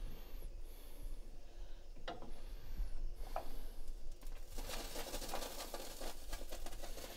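A butter, white wine and lemon sauce in a skillet starting to sizzle and bubble as the heat is raised to cook the wine down, a dense crackle that sets in a little past halfway. Before it, a wooden spoon knocks lightly against the pan a couple of times while stirring.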